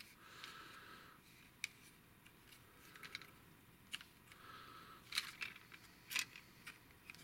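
Plastic parts of a Generations Toys Gravity Builder Mixmaster transforming robot figure being handled and moved, faint rubbing broken by several sharp clicks as pieces are shifted into place.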